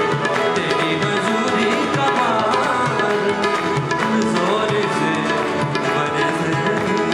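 Worship band playing an instrumental passage of a South Asian devotional song, with a tabla-style hand-drum rhythm over held keyboard chords.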